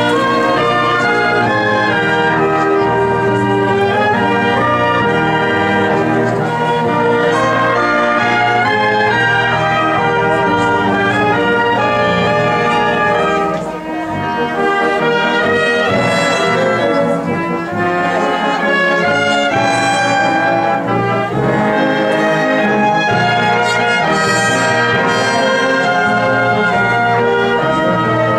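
Military wind band playing a piece: brass (trumpets, trombones, tuba) together with clarinets and saxophones.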